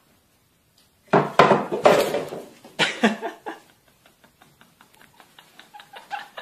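Household objects clattering and banging for about two and a half seconds as cats knock things about, followed by a run of quick, light taps, about five a second.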